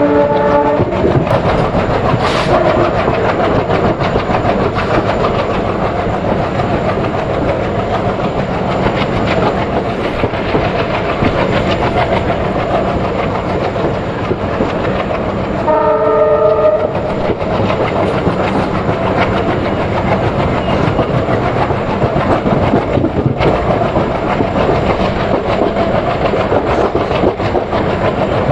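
Uttaranchal Express passenger train running at speed, with a steady rumble and clickety-clack of wheels over rail joints. A horn blast sounds briefly at the very start and again a little past halfway.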